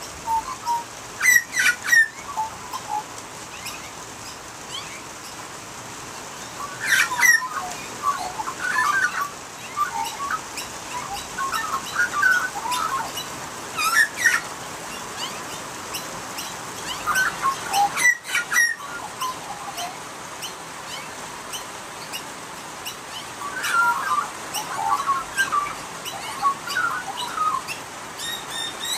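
Australian magpies carolling and warbling in several short bursts of quick, gliding notes, with pauses between them, over a steady hiss of rain.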